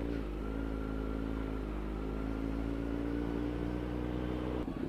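Kawasaki Z900's inline-four engine running at a steady speed while riding, with a faint high whine above it. The sound changes abruptly near the end.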